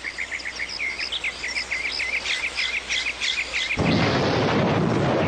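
Cartoon sound effects: a quick, regular run of small bird chirps, then, about four seconds in, a sudden loud, steady storm noise that drowns them out.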